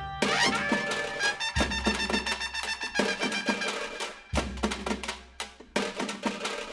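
Upbeat background music with pitched notes and a busy percussion beat.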